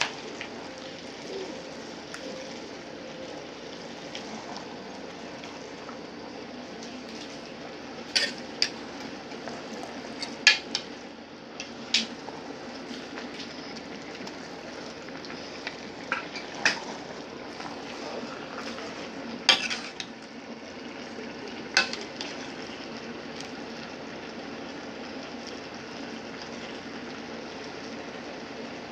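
A pot of collard greens cooking on the stove with a steady simmering hiss. A metal utensil clinks sharply against the pot about seven times in the middle stretch, as the greens are stirred.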